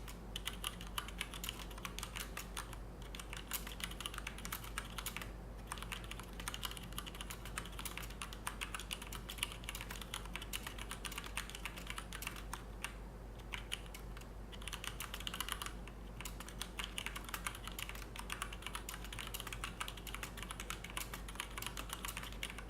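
Fast, continuous typing on a Noppoo Choc Mini mechanical keyboard with linear Cherry MX Red switches, the keystrokes softened by rubber soft-landing pads under the keycaps. The clicks pause briefly a few times.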